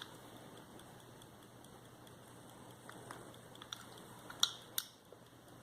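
A few faint, irregular clicks and taps from a silver pair-cased pocket watch being handled, with two sharper clicks near the end.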